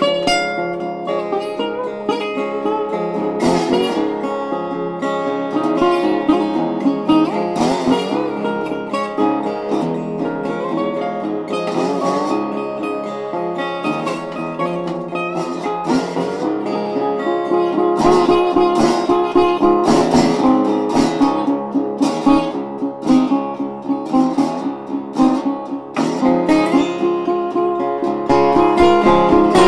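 Background music: an instrumental piece of plucked and strummed acoustic guitar.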